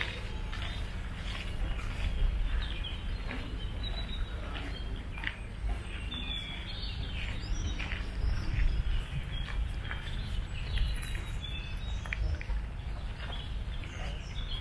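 Garden ambience: small birds chirping on and off over a steady low rumble.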